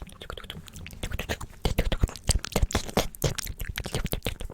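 ASMR mouth sounds close to the microphone: a dense, irregular run of wet clicks and pops, picking up and growing louder about one and a half seconds in.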